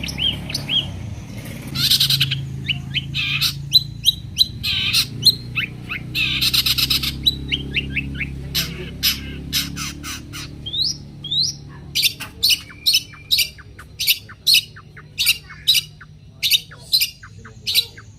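Long-tailed shrike (cendet) singing a harsh, chattering song of rasping calls mixed with short downward-sliding whistles, breaking into a fast run of sharp, repeated calls, about three or four a second, in the second half.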